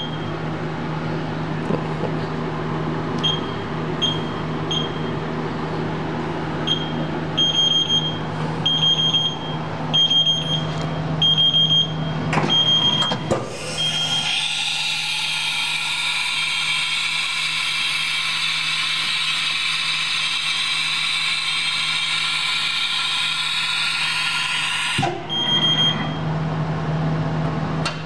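Haas TM-1 CNC mill: a string of short electronic beeps from the control over a steady hum, then about thirteen seconds in a loud machine whine starts abruptly, runs for about eleven seconds and cuts off suddenly.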